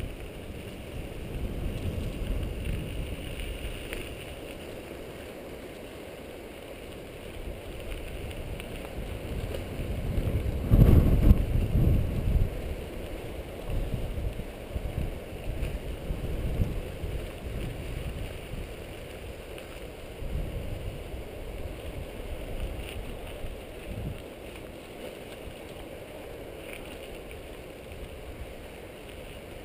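A mountain bike riding dry, rocky dirt singletrack, with wind rushing over the microphone and the bike rattling and bumping over rough ground. There is a louder stretch of bumping about eleven seconds in.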